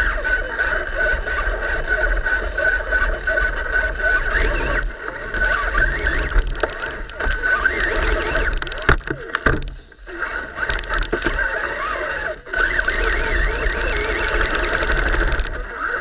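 Electric motor and gearbox whine of an RC scale crawler driving over the forest floor, wavering in pitch as the throttle changes, with stretches of crackling from leaves and twigs under the tyres. The whine drops out briefly twice, about ten and twelve seconds in.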